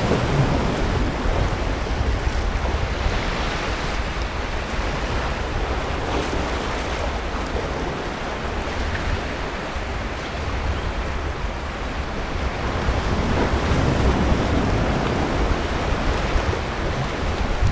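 Sea waves breaking and washing onto the beach, a continuous surf wash that swells twice, at the start and again past the middle, over a low rumble with wind buffeting the microphone.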